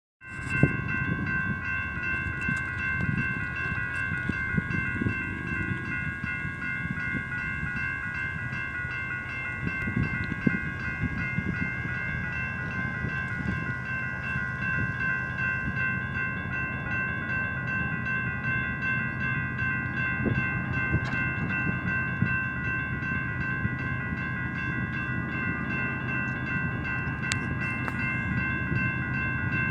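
Railroad crossing warning bell ringing steadily as the crossing signals are activated for an approaching train, over a continuous low rumble.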